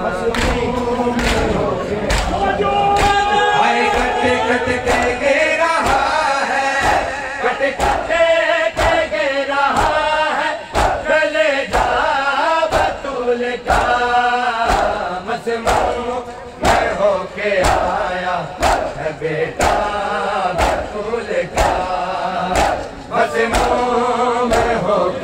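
Male voices chanting a noha, an Urdu mourning lament, with the crowd joining in, over the steady rhythmic chest-beating (matam) of many mourners, about three strokes every two seconds.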